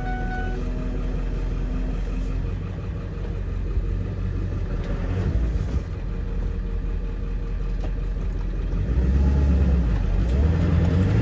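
Ford 7.3 Powerstroke V8 turbo-diesel running in a 2001 F550 on the road, heard from inside the cab with steady road and engine rumble. About nine seconds in the engine note rises as the truck accelerates. No power-steering pump whine is heard after the new steering gearbox.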